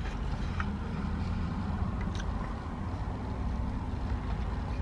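Low, steady rumble of a road vehicle engine, heard from inside a van cab, with a few faint clicks over it.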